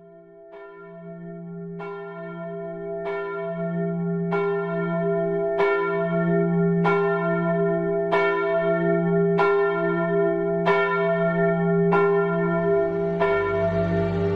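Bells tolling in a steady rhythm, struck about every one and a quarter seconds, each strike ringing on into the next over a sustained hum. The sound fades in over the first few seconds, and a deeper low tone joins near the end.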